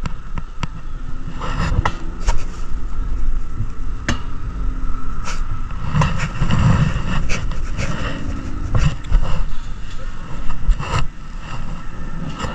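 Mountain coaster cart rattling and clanking on its metal track as it is hauled up the lift, a steady low rumble broken by irregular sharp clicks and knocks.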